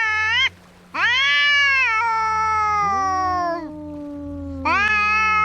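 Two cats yowling at each other in a fight: long drawn-out wails that rise and fall in pitch. One wail breaks off about half a second in. A new one starts a second in, and a lower second voice overlaps it in the middle. Another wail begins near the end. A steady low hum runs underneath.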